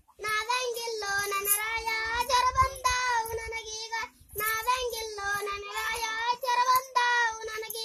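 A child's high voice singing, holding long notes with a wavering pitch in two phrases, with a short break about four seconds in.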